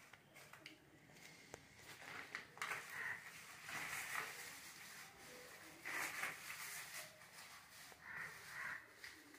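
Faint rustling and scraping of fingers pressing moist cocopeat into the cells of a plastic seedling pro tray, in uneven swells, with a few faint short higher-pitched sounds around four and six seconds in.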